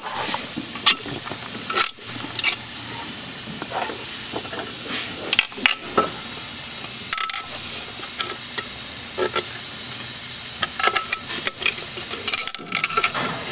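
Big steel snap ring being worked into its groove inside a Chrysler 42RLE transmission case: scattered short metallic clicks and scrapes over a steady background hiss.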